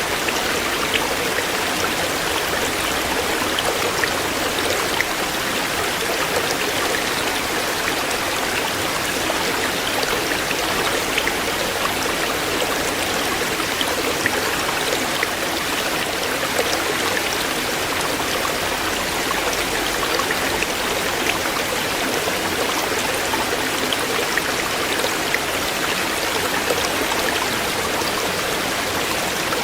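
Shallow stream flowing over stones, a steady rushing with fine splashing and trickling throughout.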